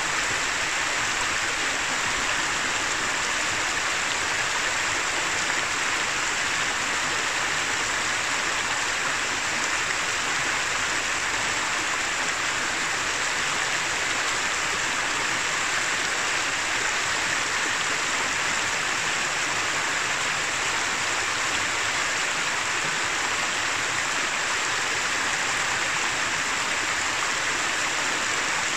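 The shallow upper Noguera Pallaresa river running over a rocky, stony bed: a steady, even rush and babble of water, mostly hiss-like and fairly high in pitch, with no change in level.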